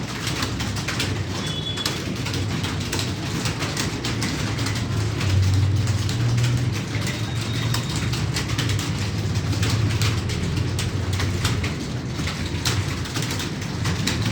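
Computer keyboard being typed on at speed: a dense, irregular patter of key clicks over a steady low hum.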